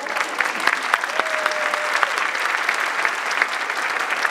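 Audience applauding: a dense, steady patter of many hands clapping in a theatre.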